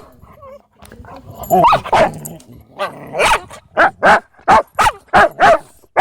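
Dog barking repeatedly: a run of about ten loud, sharp barks that starts about a second and a half in and quickens to roughly three a second in the second half.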